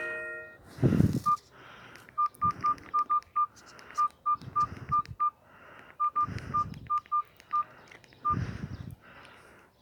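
Alcatel OT-2012D mobile phone giving about twenty short electronic beeps at one steady pitch, spaced unevenly in loose groups. A few low rumbles come in between.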